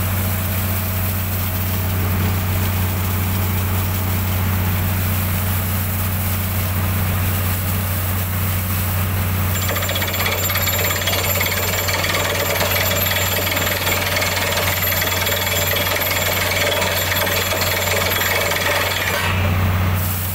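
Borewell drilling rig at work: its engine running steadily under the rapid rattle of the percussive drill hammer, with compressed air blasting cuttings out of the borehole. About halfway through, the rattle and hiss get much louder, then they drop off briefly shortly before the end.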